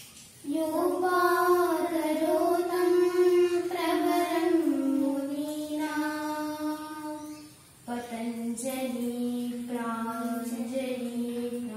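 Two young girls chanting a prayer together on long, held notes, pausing briefly about eight seconds in before going on.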